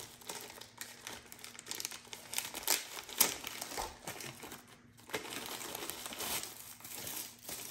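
Clear plastic packaging bag crinkling as it is handled and opened to take out a barrel sock, with irregular sharp crackles, the loudest about three seconds in.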